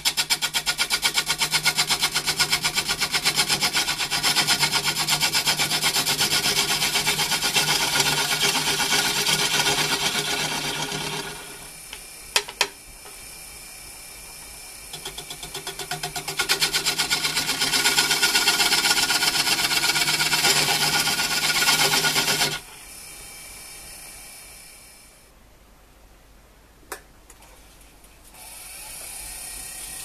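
Wood lathe spinning a wooden bowl while a bowl gouge cuts the inside, a rapid, rhythmic scraping chatter in two long cuts with a short break and a couple of clicks between them. After the second cut stops, only the lathe's quiet running remains, with a single click.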